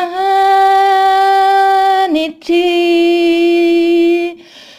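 A woman singing the word "humanity" in two long held notes, the second a little lower, with a short break a little after two seconds in.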